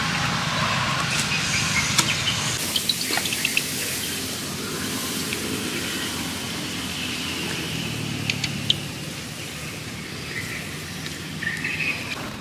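Outdoor ambience: a steady low hum, with a few short high bird chirps scattered through it.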